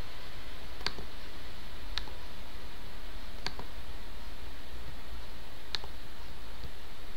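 Computer mouse buttons clicking, about five sharp clicks a second or more apart, over a steady hiss and low hum.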